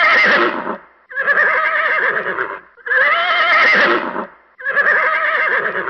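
Horse whinnying: four wavering whinnies in a row, each about a second and a half long.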